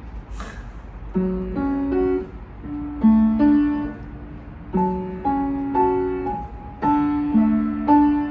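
Piano played note by note: a short phrase that begins about a second in, repeats near five seconds in and again near seven seconds in, with gaps between the phrases.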